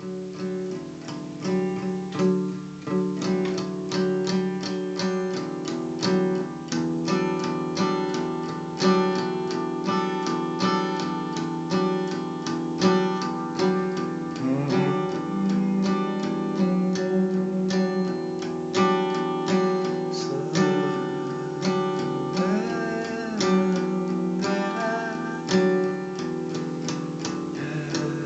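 Acoustic guitar playing an instrumental passage of a worship song, chords struck in a steady rhythm.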